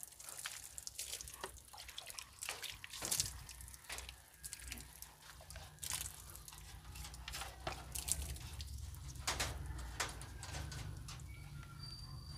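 Rabbits chewing grass and shifting about in a wood-and-wire hutch: faint, irregular clicks and taps, one or two a second, over a low steady hum.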